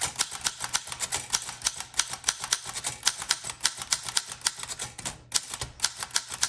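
Typing on a 1914 Corona 3 portable typewriter: a quick, steady run of type bars striking the platen, with a brief pause about five seconds in.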